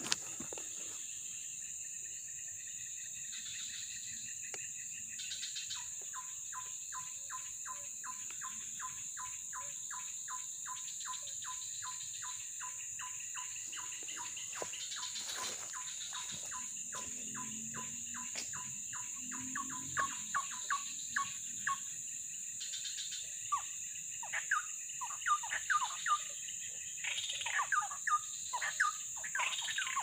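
Birds calling over a steady high-pitched insect drone: a fast run of short repeated notes, about four a second, through the middle, then louder, varied chirps and whistles in the last few seconds.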